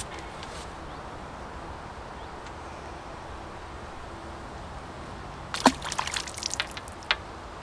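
A roach let go back into the river: a quick run of splashes at the water's surface about five and a half seconds in, and one more small splash a second later, over a faint steady outdoor background.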